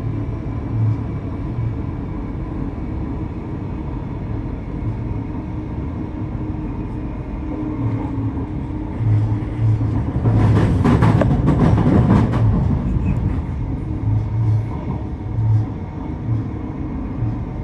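A train running on the rails with a steady rumble and hum. About ten seconds in it gets louder for roughly three seconds, with rapid clattering, as it comes closest.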